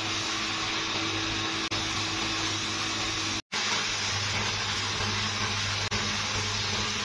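Electric belt-driven grinding machine running, its abrasive disc grinding down the friction facing of a used truck clutch plate: a steady hiss of grinding over a steady motor hum. The sound cuts out for an instant about three and a half seconds in.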